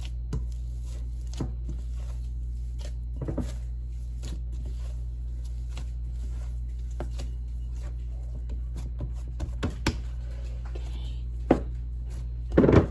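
Hands working and handling a bowl of corn masa dough: scattered soft taps and knocks, with two louder thumps near the end, over a steady low hum.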